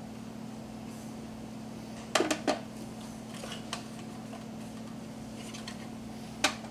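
A few light clicks and knocks of plastic coffee-maker parts being handled: three close together about two seconds in, a couple of fainter ones later and one near the end, over a steady low hum.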